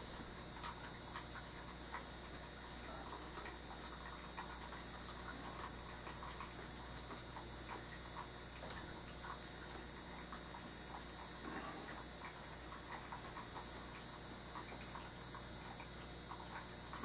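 Faint, irregular light taps and scrapes of an oil-paint brush dabbing on a painting panel, over a steady low room hum and hiss.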